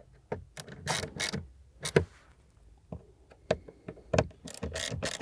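Hand ratchet clicking in short, irregular runs as it snugs up T25 Torx screws, only gently, not fully tightened.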